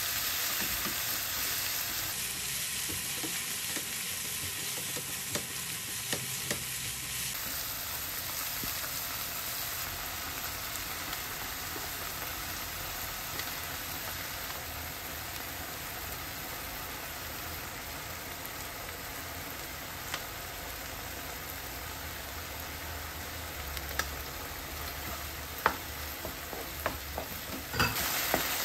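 Minced meat and chopped onion sizzling steadily in a nonstick frying pan as they are stir-fried and broken up, with scraping from the utensils. Near the end a few sharp clicks of the utensil against the pan.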